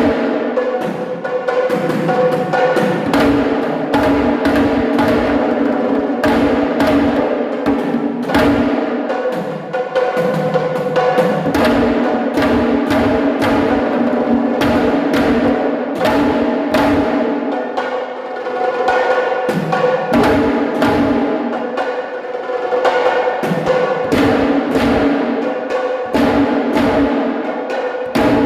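Loud live drumming: a dense, continuous run of drum strikes over steady held pitched tones from another instrument.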